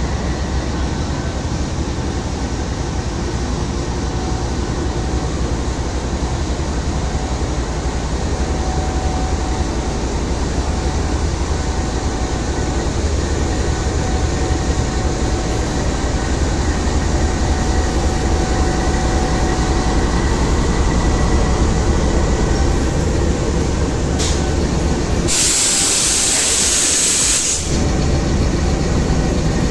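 GEU-20 diesel-electric locomotive running steadily as it pulls its coaches away from the platform, a continuous low drone. About 25 seconds in, a sharp hiss of air cuts in for about two seconds.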